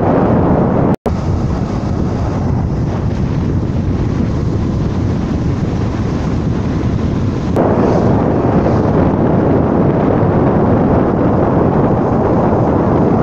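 Wind buffeting a phone's microphone on a moving motorcycle, a loud steady rush mixed with the bike's riding noise. It cuts out for an instant about a second in and turns brighter a little past halfway.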